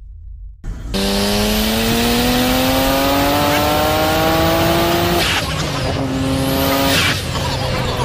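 Vehicle engine accelerating: its pitch climbs steadily for about four seconds, then drops and settles twice, like upshifts through the gears.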